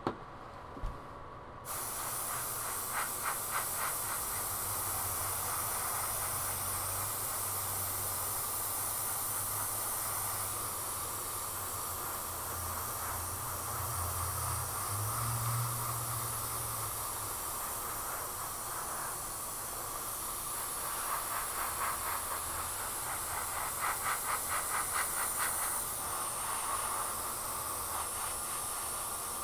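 Airbrush hissing steadily as it sprays paint, starting about two seconds in after a couple of clicks. The hiss pulses rapidly in short stretches, near the start and again in the last third.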